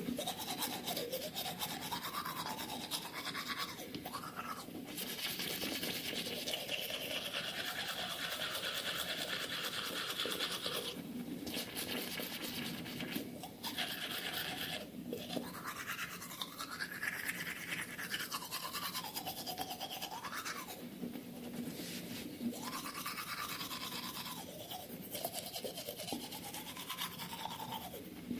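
A long stock sound effect that starts suddenly: a steady buzzing, scrubbing noise with a tone that keeps sweeping up and down, briefly dipping a few times midway.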